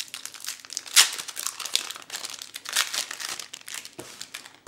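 A foil trading-card booster pack being torn open and crinkled by hand, a run of crackles with the loudest about a second in and again near three seconds.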